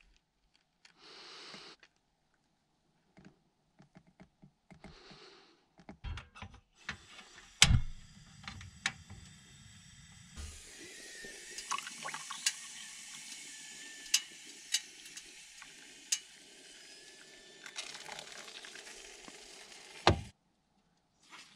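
Portable gas camping stove lit with a sharp click of its knob under a moka pot, then a long steady hiss with scattered small clicks as the pot brews, and coffee poured into a mug.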